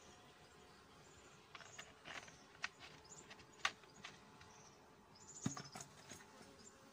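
A few sharp clicks and light knocks from a plastic bottle being handled and capped and from a wooden hive box being touched, the loudest about halfway through and a duller knock near the end. Beneath them runs a faint steady hum of honeybees from the open hive.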